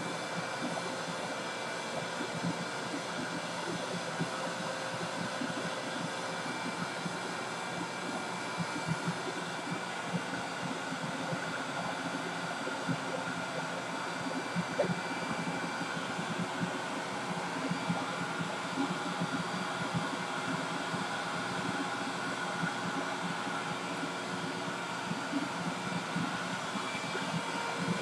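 Vacuum cleaner running steadily, heard at a distance from the microphone, with small knocks now and then.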